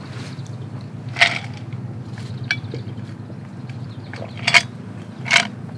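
Tableware being handled: five or so short knocks and clinks of a metal spoon and steel tumbler against cups on a wooden table, over a steady low hum.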